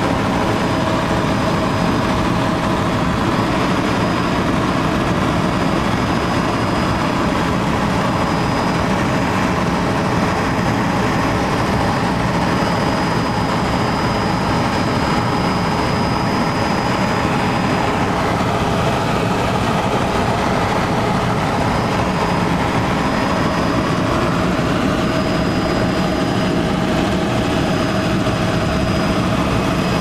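Helicopter engine and rotor noise in flight: a steady, unbroken drone with a thin high whine running through it.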